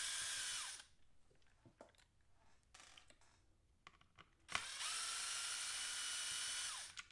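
Small electric screwdriver driving screws in two runs: a steady motor whine that winds down in pitch as it stops just under a second in, then starts again about 4.5 seconds in and runs for about two seconds. Light clicks of handling lie between the runs.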